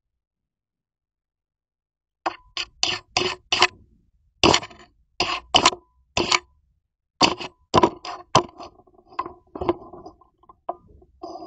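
A cat rubbing his face and fur against a CCTV camera, heard right on the camera's microphone as a string of short, irregular scraping and rustling noises, about two or three a second, starting about two seconds in.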